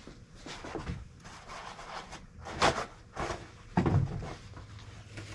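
Hand work at a steering column's ignition lock cylinder: scattered small clicks and rubbing, with two sharper knocks about two and a half and four seconds in.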